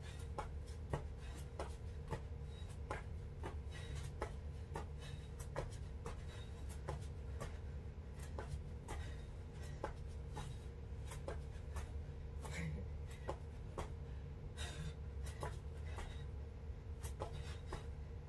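Feet tapping down in quick succession during plank jacks, a sharp tap roughly twice a second, over a steady low hum.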